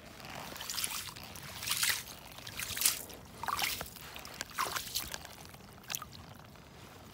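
A bare hand splashing and scooping in the slush-filled water of a freshly augered ice hole, feeling how thick the ice is: a series of short splashes and scrapes, about one a second.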